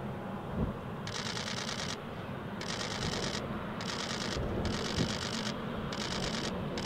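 General Electric CF34 turbofans of an Embraer E190 running at low power as it taxis, a steady low rumble. From about a second in, a crackling hiss switches on and off roughly once a second.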